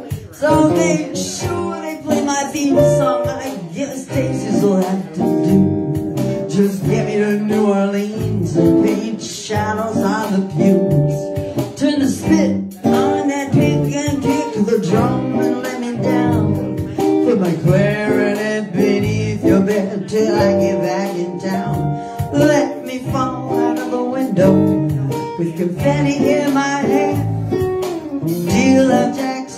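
Live acoustic guitar strummed and picked, with a man singing over it.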